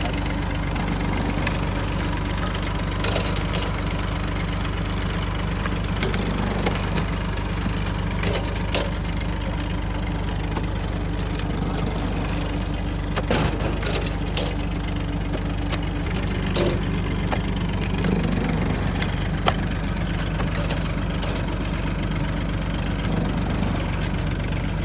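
Massey tractor's diesel engine running steadily, driving a clay brick-extruding machine, with a short high squeak about every five or six seconds and occasional sharp metallic knocks as the machine works.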